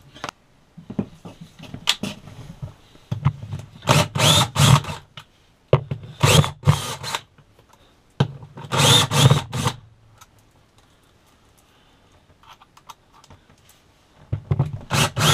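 Cordless drill-driver running in several short bursts, backing the screws out of a toilet flange.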